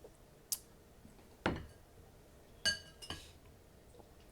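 Dishes and cutlery clinking at the table: four short knocks and clinks, the third a brief ringing clink.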